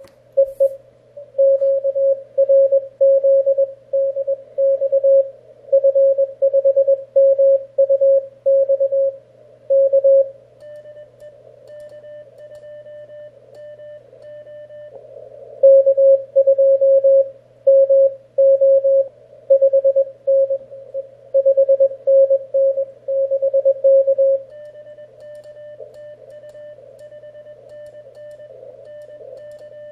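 Morse code (CW) from an Elecraft K1 QRP transceiver: a single tone keyed on and off in dots and dashes. Louder for about the first ten seconds and again from about 15 to 24 seconds, fainter keying in between and near the end.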